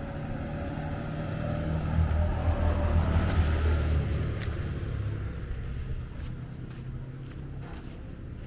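An engine passing by: a low rumble that swells to its loudest about two to four seconds in, then fades away.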